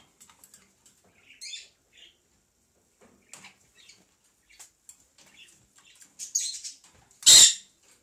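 Parakeets moving about a wire cage: scattered small chirps, scratches and clicks, with one loud short burst near the end.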